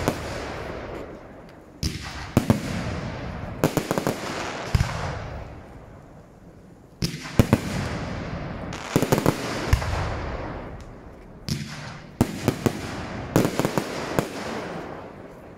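Aerial fireworks bursting in volleys: clusters of sharp bangs every second or two, each cluster followed by a fading echo.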